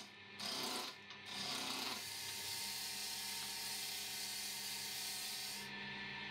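Turning tool cutting a spinning pine blank on a wood lathe, rounding it down to a cylinder: two short cuts, then one longer continuous cut that stops sharply near the end, with the lathe's motor humming underneath.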